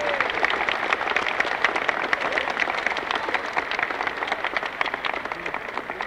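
A crowd applauding, many hands clapping densely, slowly dying down toward the end.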